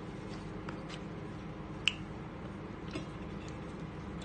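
Quiet eating sounds from chewing and handling a homemade shawarma sandwich: a few faint clicks and one sharp click about two seconds in, over a steady low hum.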